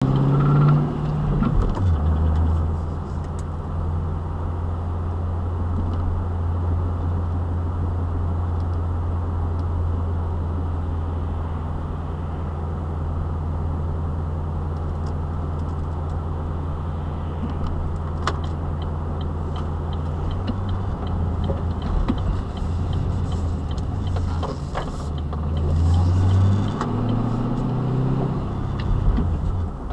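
A car's engine and tyre noise heard from inside the cabin while driving: a steady low drone that shifts after about two-thirds of the way through and rises in pitch briefly near the end as the car speeds up.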